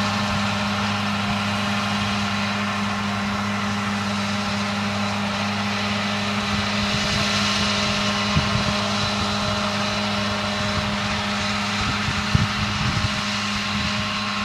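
An engine running steadily at a constant pitch, with a few low bumps near the end.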